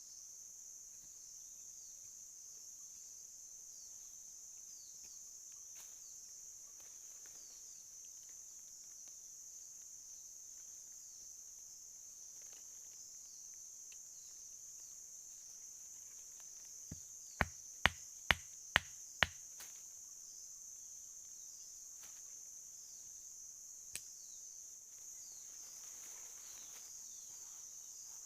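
A steady, high-pitched chorus of insects. A little past halfway comes a quick run of about six sharp knocks, with one more a few seconds later.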